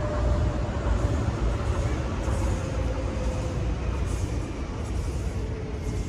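Train passing on a nearby rail line, a steady low rumble with a faint whine slowly falling in pitch.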